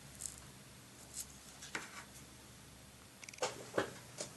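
Faint, scattered light taps and rustles as felt petals and a hot glue gun are handled and put down on a paper-covered work surface, a few sharper clicks about three and a half to four seconds in.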